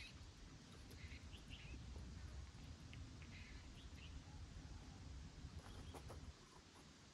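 Faint outdoor ambience: a low rumble that eases about six seconds in, with a few short, faint bird chirps.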